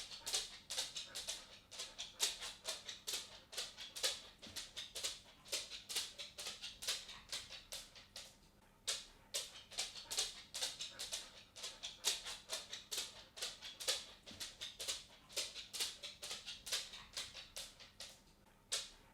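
Cat walking on a hard floor, its claws ticking in quick, irregular clicks, several a second, with a brief pause about eight and a half seconds in.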